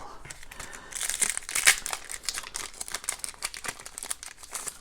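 Crinkling and tearing of a hockey trading-card pack wrapper being opened by hand: a stream of irregular crackles that gets busier about a second in.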